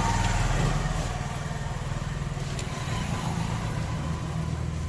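A motor engine running with a steady low rumble, loudest near the start and easing off slightly.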